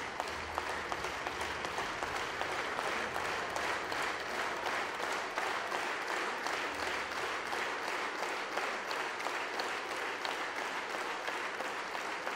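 A hall full of parliament deputies applauding steadily, many hands clapping at once.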